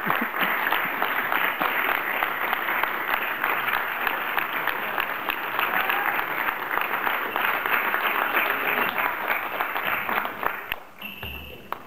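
Audience applause: many people clapping steadily in a hall, dying away about ten and a half seconds in.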